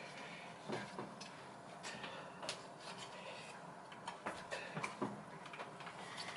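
Scattered, irregular light clicks and taps of a plastic smoke detector being handled while someone tries to get its battery out.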